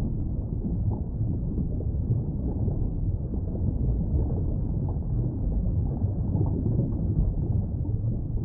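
Underwater ambience: a steady, muffled low rumble of moving water, with no distinct calls or clicks.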